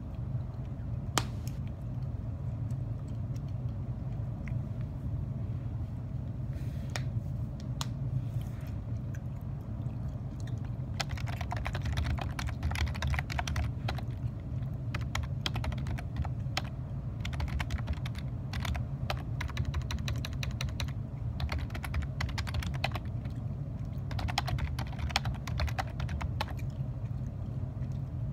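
Typing on a computer keyboard: a few scattered key clicks at first, then fast runs of typing from about a third of the way in, with a short pause near the end, over a steady low background hum.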